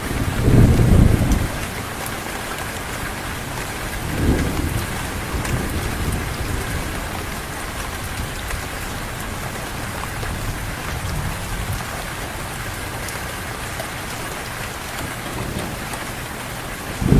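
Heavy rain falling steadily, with a loud low rumble of thunder about a second in and a weaker rumble around four seconds in.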